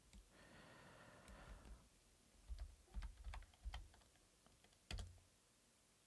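Faint clicks of computer keyboard keys being typed, a handful of separate taps between about two and five seconds in.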